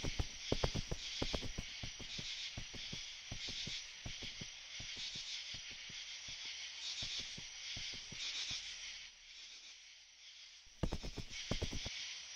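Steady high insect chirring, with a run of irregular crackling clicks like dry grass being trampled underfoot. The clicks thin out and stop about three-quarters of the way through, then come back as a brief dense flurry near the end.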